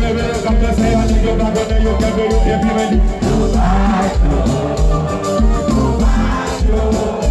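Live Haitian konpa band music at a party: electric bass and drums over a steady dance beat, with a man singing into a microphone.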